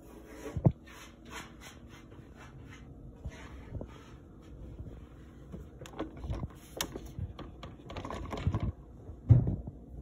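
Phone handling noise: rustling and scattered soft knocks, the loudest near the end. Over the first few seconds there is also a quick breathy ticking, about three a second.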